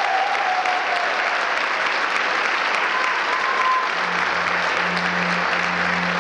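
Audience applauding steadily. A low hum comes in about four seconds in.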